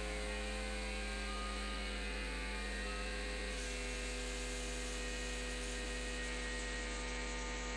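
Steady electrical hum: a deep, unchanging drone with a few steady tones above it.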